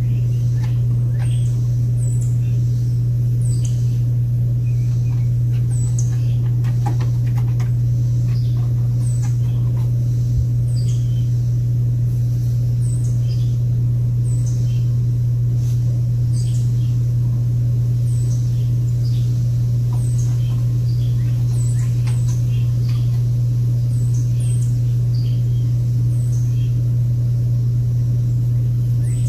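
Small birds chirping over and over, short high calls that fall in pitch, over a loud steady low hum.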